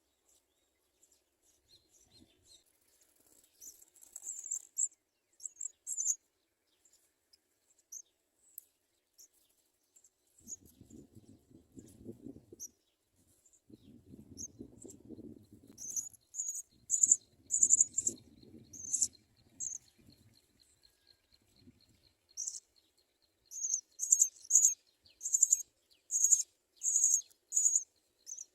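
House sparrows chirping: many short, very high chirps, scattered at first and then in fast runs in the second half. A low rumble joins in through the middle, and a faint steady high buzz runs under the later chirping.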